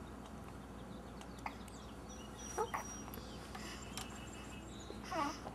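Six-week-old baby hiccuping: a few short, faint, squeaky hics, two in quick succession about two and a half seconds in and another near the end.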